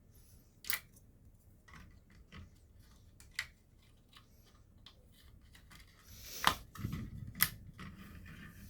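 Sharp clicks and light taps of computer hardware being handled, metal and plastic parts knocking together, with a busier cluster of clicks around six to seven and a half seconds in.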